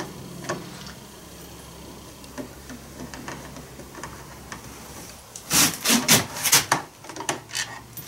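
Screws being backed out of a concrete saw's air filter cover: a few faint ticks at first, then loud clicking and clatter of the cover and screws being handled from about five and a half seconds in, as the cover is worked loose.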